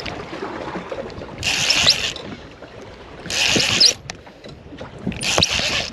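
Fishing reel being wound in short bursts, about three times, roughly every two seconds, as a hooked fish is pumped and reeled toward the boat. Low water and boat noise runs underneath.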